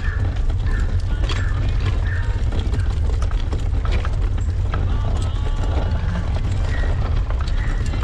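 Handcycle rolling over a cobblestone street: a steady low rumble with rattling and clicking from the bike's frame, hand-crank drivetrain and chain.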